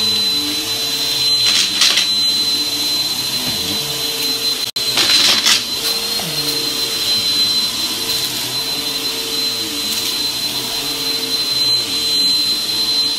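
Upright vacuum cleaner running as it is pushed over a shag rug, a steady motor hum with a high whine over it. Twice the airflow surges into a louder hiss, and the sound breaks off for an instant a little before five seconds in.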